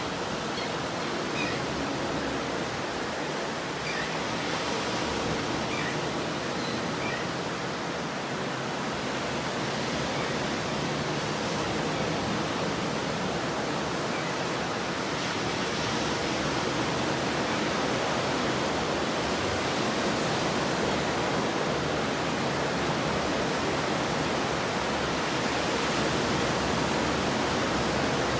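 Ocean surf washing onto the beach as a steady, continuous rush, a little louder in the second half.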